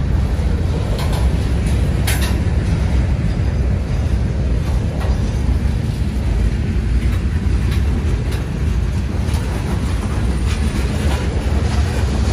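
CSX freight train rolling along the rails with a steady, heavy low rumble. A few sharp clicks stand out here and there.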